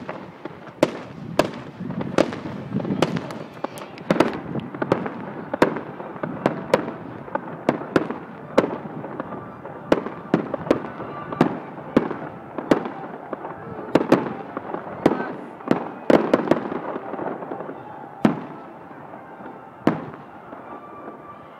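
Aerial fireworks display: a rapid, irregular series of bursting shells that bang and crackle, thinning to a few single bangs near the end.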